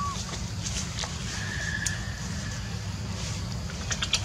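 Steady low outdoor background rumble, with a brief faint high squeak about a second and a half in and a few sharp clicks near the end.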